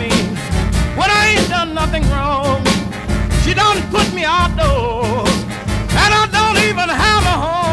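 Blues band recording from 1950 playing an instrumental passage: a lead line that bends and wavers with vibrato over a steady beat of drums and bass.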